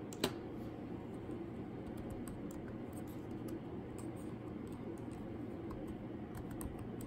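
Slow, sparse keystrokes on a laptop keyboard as letters are typed into a text box, with one sharper click about a quarter second in, over a steady low background hum.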